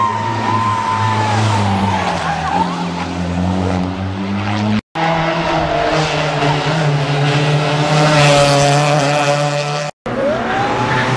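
Rally cars driven hard on a stage: engines revving at high load with tyres squealing through corners, the engine pitch climbing around eight seconds in. The sound breaks off abruptly twice, about five and ten seconds in, as one car gives way to the next.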